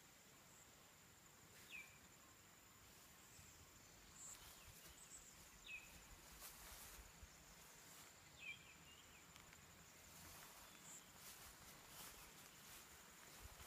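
Near silence: a steady, thin, high insect drone, with three short falling bird chirps spread through it. No engine is heard.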